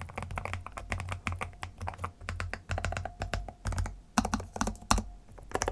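Typing on a Lofree Flow2 mechanical keyboard with PULSE switches: a quick, uneven run of key clicks, with two louder, heavier strokes about four and five seconds in.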